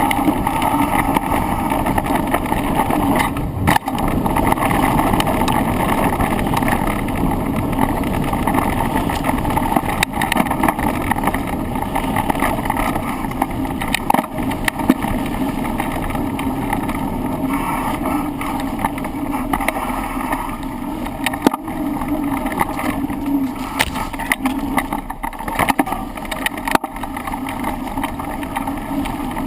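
Mountain bike descending a rough trail, heard from a handlebar-mounted camera: steady tyre and wind roar with frequent rattles and knocks from the bike and mount over bumps.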